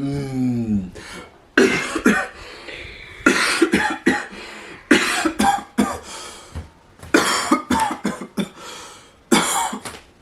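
A person coughing hard in repeated fits, about five bouts a second or two apart, each starting abruptly and trailing off. It opens with a short falling moan.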